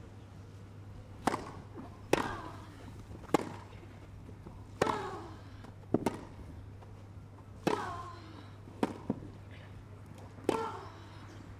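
Tennis rally: the ball being struck by rackets and bouncing, a sharp pop every second or so. A short player's grunt follows every other hit.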